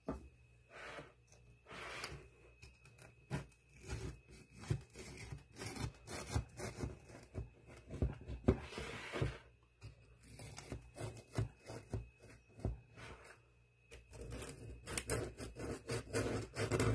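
Knife cutting down through the crunchy pecan crumb topping and cake in a glass baking dish: irregular crunching and scraping strokes with short pauses between cuts.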